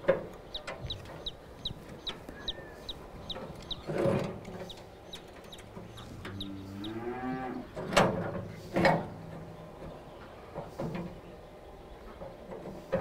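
A cow moos once, a long call rising slightly in pitch about six seconds in. Sharp knocks sound now and then, the loudest two close together near eight and nine seconds, and a faint high chirp repeats about three times a second through the first half.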